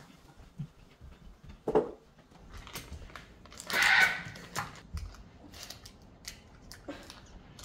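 Paper butter wrapper crinkling and tearing as a stick of butter is unwrapped by hand, with light knocks on the counter; the loudest rustle comes about four seconds in.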